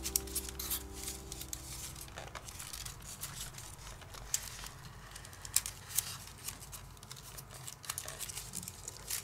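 Paper rustling and crinkling with small sharp clicks and taps as hands fit the slotted layers of a paper pop-up egg together. Background music ends about two seconds in.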